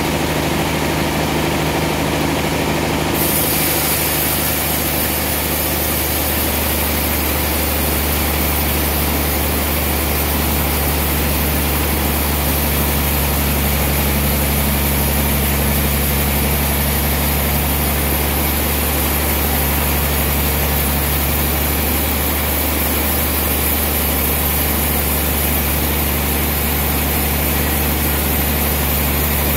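Large band sawmill running steadily, its motor and blade giving a constant low hum.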